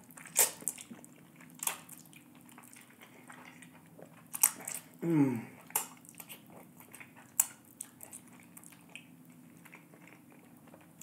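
Close-miked eating of saucy black bean fire noodles: wet chewing with sharp lip smacks and mouth clicks every second or two. Partway through comes a brief falling 'mm' of enjoyment.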